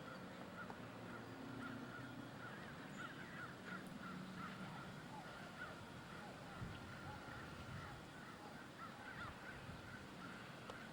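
Birds calling faintly, many short chirps scattered throughout over a steady faint hiss.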